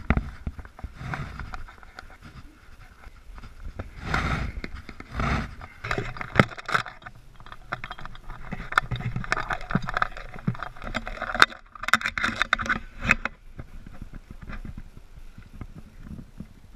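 Irregular knocks, clicks and scraping of someone moving about inside a plastic portable toilet cabin, handling the toilet paper and the camera. The noises die down about two-thirds of the way through.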